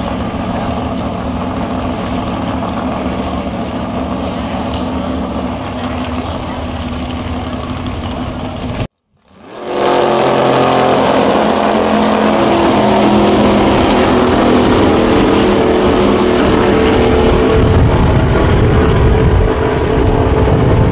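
A drag car's engine with open headers idling steadily, then, after a brief silent break about nine seconds in, running loud at full throttle as the car makes a quarter-mile pass.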